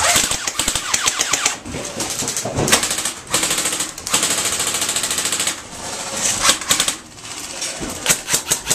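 Airsoft guns firing full-auto, a fast clatter of shots in repeated bursts, with one long burst in the middle and slower separate shots near the end.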